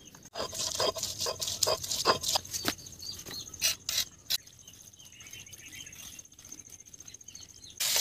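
Food being prepared by hand: an irregular run of sharp clicks and knocks for about the first four seconds, then a quieter stretch.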